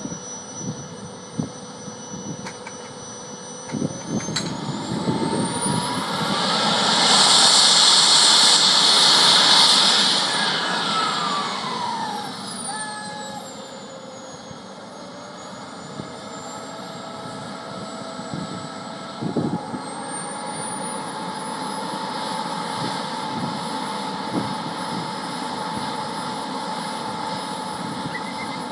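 R/C F-16 model's small jet turbine starting up. About four seconds in, a high whine climbs, then a loud rushing roar lasts about three seconds. The pitch then winds down and settles into a steady high idle whine.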